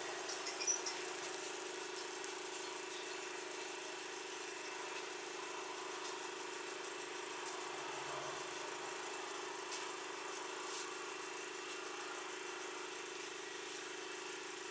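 Steady hum of an idling motor, holding one pitch without change.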